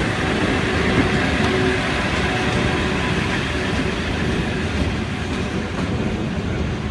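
E26-series sleeper passenger cars rolling past at close range: a loud, steady rumble of steel wheels on the rails.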